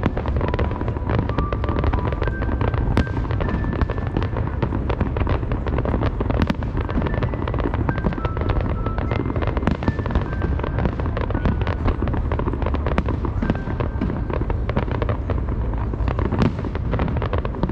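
Aerial fireworks shells bursting in rapid succession, a dense run of sharp bangs and crackles over a continuous deep rumble.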